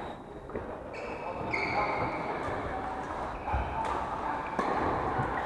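Badminton being played in a large, echoing hall: sharp racket hits on shuttlecocks and short squeaks of shoes on the wooden court floor, with players' voices in the background.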